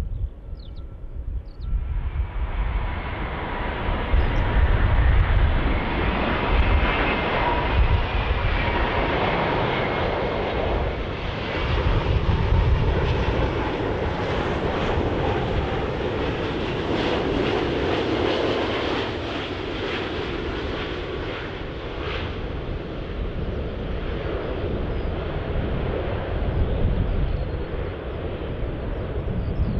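Emirates Airbus A380's four turbofan engines on final approach: a continuous jet roar that swells from about two seconds in as the aircraft comes close, then eases a little in the last third as it flares over the runway.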